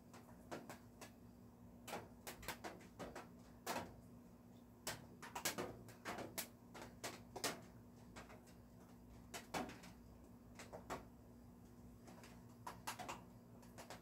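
Raindrops striking the studio roof, heard as irregular sharp ticks, sometimes several in quick succession, over a steady low hum.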